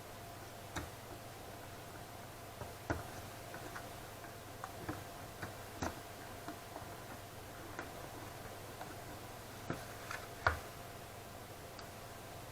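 Small, irregular clicks and taps from hands and tools handling a graphics card during disassembly, with the loudest knock about ten seconds in. A steady faint hum runs underneath.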